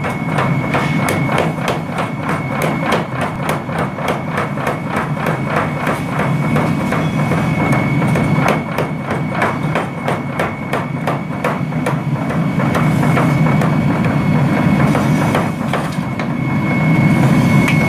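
Mechanical spring hammer pounding red-hot steel as a nata blade is forged, in a rapid, even run of blows over a steady low machine hum and a thin high whine. The blows thin out and stop in the last few seconds as the workpiece is drawn away, leaving the hum.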